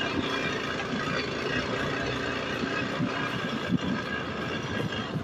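Hero XPulse 200 dirt bike's single-cylinder engine running at a steady low pace while riding over a loose rocky track, with stones crunching and rattling under the tyres. A sharp knock comes a little after three and a half seconds in.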